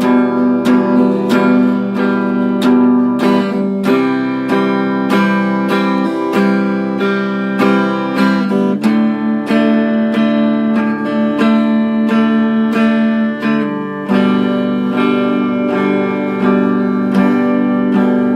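Acoustic guitar strummed in a steady rhythm, chords changing a few times, with no singing.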